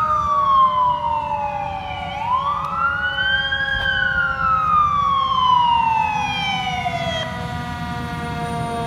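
Fire engine siren wailing as the pumper drives by. The pitch falls, climbs again about two seconds in, then slides slowly down and stops about seven seconds in. A low truck engine rumble runs underneath.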